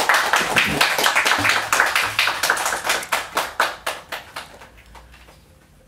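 Small audience applauding, the clapping dying away over the last couple of seconds.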